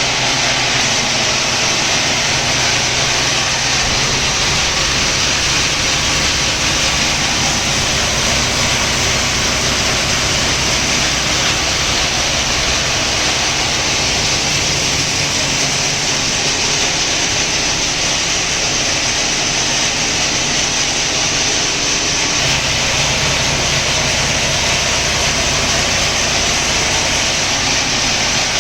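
A 25-inch heavy-duty grinder running steadily: a loud, even machine noise with a low hum underneath and no change in pitch or level.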